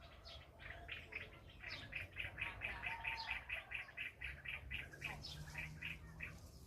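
A bird chirping in a quick, even run of short chirps, about five a second, that thins out near the end.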